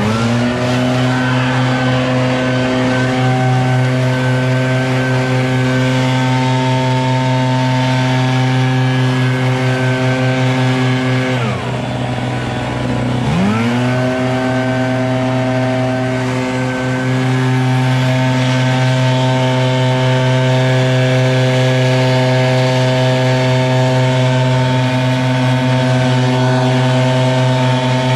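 Two-stroke gas backpack leaf blower, an ECHO PB-8010, revving up to full throttle and running steady with a rush of air. About twelve seconds in the throttle drops briefly and the engine falls off, then revs back up to full speed a second and a half later.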